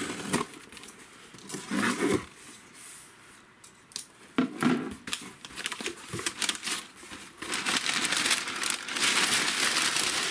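A cardboard shipping box being opened: tape tearing and flaps pulled apart with scattered crackles, then brown packing paper crumpling as it is pulled out, a dense, steady rustle over the last few seconds.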